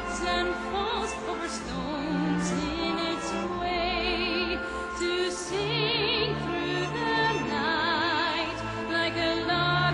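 Music in an operatic, classical style: long held melody notes with a wide vibrato over a steady low accompaniment.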